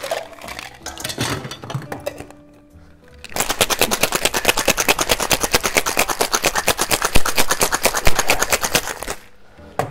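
A few knocks and clinks as the metal cocktail shaker is closed up. Then, about three seconds in, ice rattles hard inside the shaker tins as a daiquiri is shaken: a fast, even rattle of many hits a second that stops shortly before the end.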